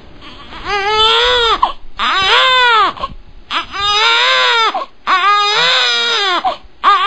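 Baby crying in a series of wails, each about a second long, with the pitch rising and then falling. There are four full cries and a fifth beginning at the end.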